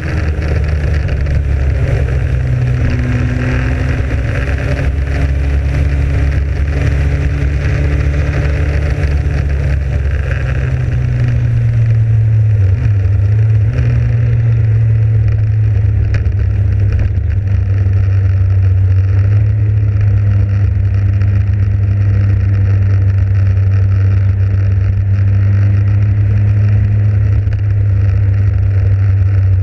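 Motorcycle engine running under way, heard from the bike with wind rushing over the microphone. The engine note drops about ten seconds in and then holds steady, and the wind hiss eases soon after.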